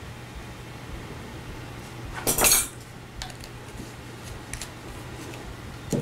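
A metal measuring spoon clattering against a bowl: one short, loud clink-and-scrape about two seconds in, followed by a few light clicks of the spoon and the small extract bottle being handled.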